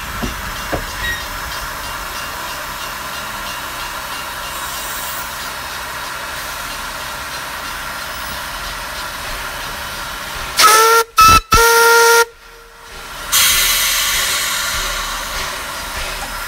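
Narrow-gauge steam locomotive whistle: three quick blasts in succession, the last the longest, over a steady background hiss. About a second later a loud hiss of steam starts suddenly and slowly fades.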